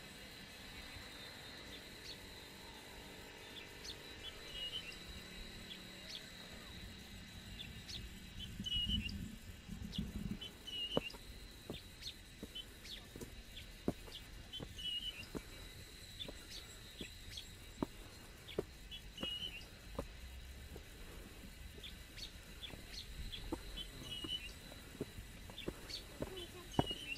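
A bird repeats a short chirping call every couple of seconds over a steady high-pitched insect drone. A brief low rumble comes about a third of the way in, followed by footsteps clicking on stone steps.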